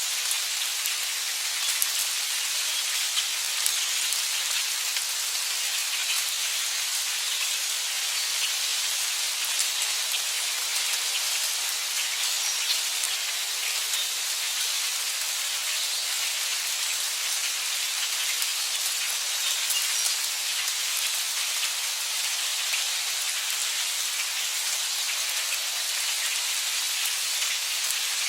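Heavy rain falling steadily: a dense, even hiss, mostly high in pitch, with many small drop ticks through it.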